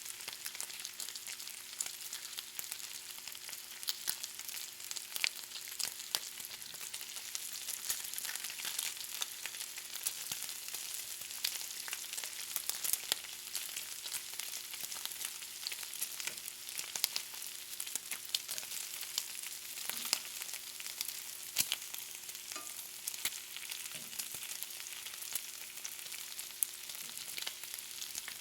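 Bacon frying in a pan: a steady high sizzle of hot fat, studded with frequent sharp pops and crackles.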